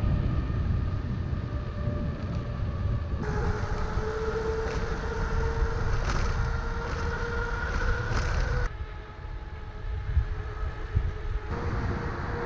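Wind rumbling on the microphone during a bike ride on a road, with a steady humming tone from tyres or traffic over it. The sound changes abruptly about three seconds in and again near nine seconds.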